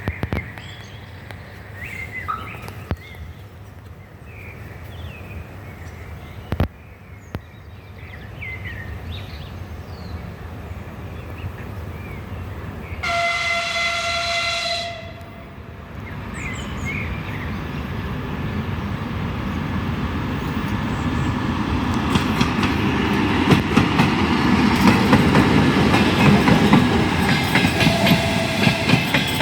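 TEP70BS diesel locomotive hauling a passenger train approaches, its engine and wheel rumble building steadily louder, with the clickety-clack of wheels over rail joints in the last several seconds. About halfway through the locomotive sounds one horn blast of about two seconds.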